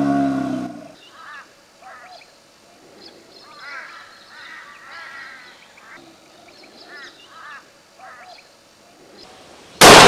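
A chital stag's deep, drawn-out bellow ends within the first second; short high chirps follow. Near the end a single rifle shot cracks loudly and echoes away.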